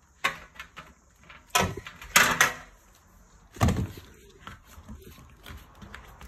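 Knocks and clatter of metal roof-basket bars and plastic joints being handled and fitted together: a handful of hard knocks, the loudest about a second and a half in, two seconds in and near three and a half seconds, with lighter clicks between.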